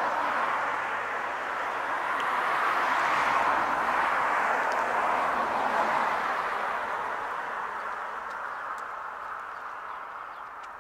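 Rushing sound of a passing vehicle on a nearby road, rising to a peak and then fading away over the last few seconds as it moves off.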